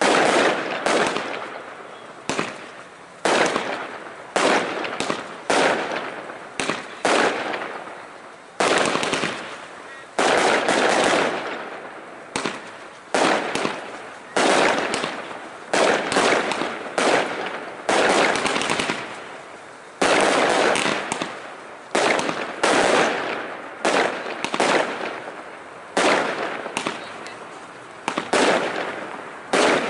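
Aerial fireworks bursting in a rapid, continuous barrage of loud bangs, about one a second, each dying away quickly before the next.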